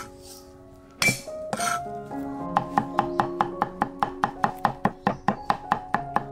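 Cleaver chopping garlic on a wooden chopping block: two heavy blows about a second in, then fast, even mincing strokes at about five a second. Background music plays underneath.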